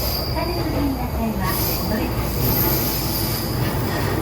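Running noise heard from inside a Chuo Line rapid commuter train car: a steady rumble with high-pitched wheel squeal on the rails.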